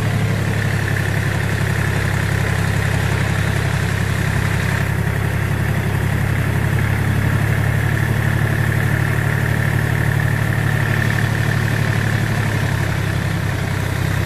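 Yanmar F24D compact tractor's diesel engine running steadily at working speed while it pulls a fertiliser spreader across the field, with a steady high whine over the engine note.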